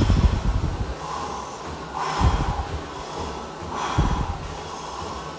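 A man breathing hard through pursed lips while doing push-ups close to the microphone: three forceful exhalations about two seconds apart, with fainter breaths between them.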